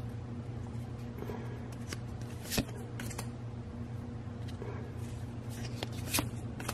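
Pokémon trading cards being flipped through by hand, each card slid off the front of the stack with a short papery flick, a few times, the loudest about two and a half seconds in. A steady low hum runs underneath.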